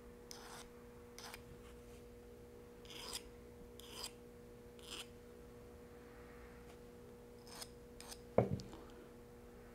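Small hand hook file scraping across the point of a steel 10/0 fishing hook in short, light push strokes, about seven of them spaced unevenly, as the point is sharpened. A single louder brief knock comes about eight seconds in.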